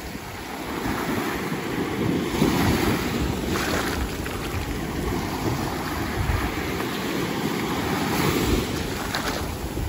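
Small surf washing up the shore and swirling around bare legs in the shallows, with wind buffeting the microphone. The wash swells louder about two and a half seconds in and again near the end.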